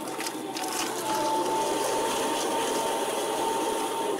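Twin-shaft stump shredder running, its counter-rotating toothed rotors grinding a tree stump: a steady mechanical whir, joined by a thin steady whine about a second in.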